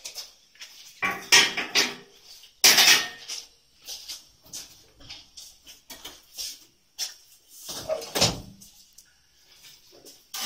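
Irregular metal clanking and rattling as metal rods and parts of a wall-rendering machine are handled. Louder clusters come about a second in, near three seconds and around eight seconds, with lighter knocks between.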